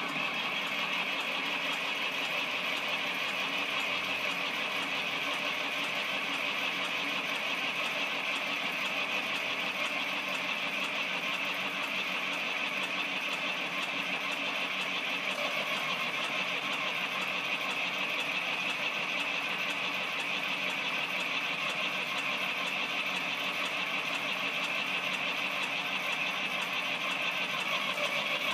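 Fordson New Performance Dexta tractor's three-cylinder diesel engine running at a steady idle.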